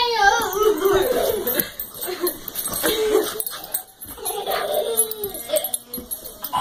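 Two dogs play-wrestling, giving repeated short, wavering whines and yips.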